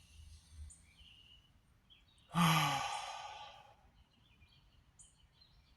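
A person's long audible sigh about two seconds in: a voiced out-breath that falls in pitch and trails off into breath.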